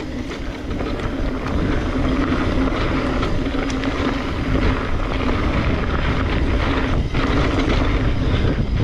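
Wind buffeting a chest-mounted action camera's microphone while a mountain bike rolls fast down a loose dirt trail, its tyres crunching over the dirt and a steady low hum running under the rush.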